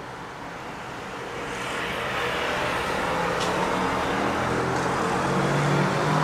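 A motor vehicle's engine and road noise, growing gradually louder as it approaches.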